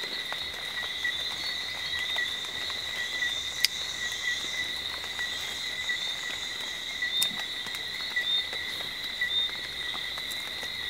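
Steady cricket-like insect chorus trilling at one high pitch without a break, with a couple of sharp clicks along the way.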